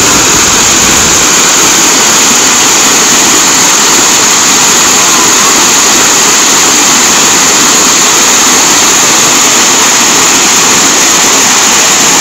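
Waterfall pouring over rock ledges into a shallow pool, a loud, steady rush of falling water.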